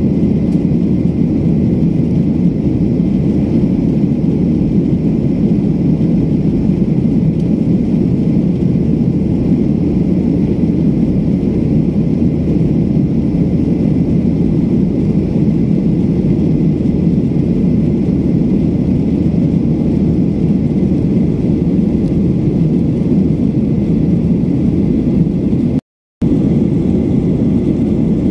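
Steady engine and airflow noise of a jet airliner in flight, heard from inside the passenger cabin. A low, even drone, cut off for a split second near the end.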